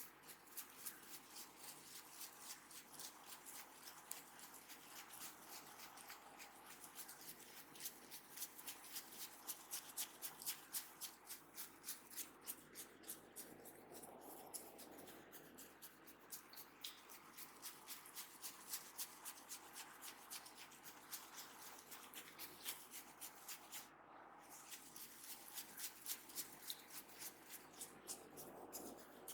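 Hands massaging a head, faint quick regular strokes of palms and fingers on the scalp and hair, about three to four a second, with one short break near the end.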